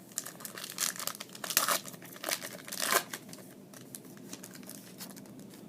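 Foil wrapper of a trading-card pack crinkling and tearing as it is opened: a quick run of sharp rustles over the first three seconds, then softer handling.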